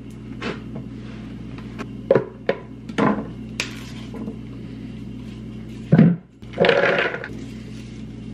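A knife knocking on a cutting board a few times as dates are chopped, then louder knocks and rustling as food and a handful of cilantro go into a plastic Vitamix blender jar, about six seconds in.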